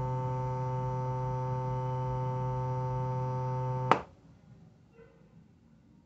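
A small speaker playing a steady 127 Hz test tone from a phone frequency-generator app: a low hum with a buzzy edge. It cuts off with a click about four seconds in, leaving only faint room sound.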